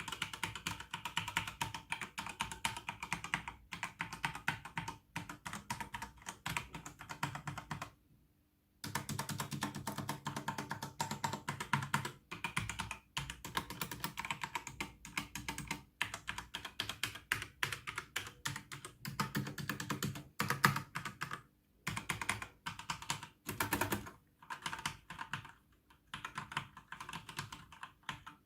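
Typing on a computer keyboard: a fast, irregular stream of key clicks, with one brief pause about a third of the way in.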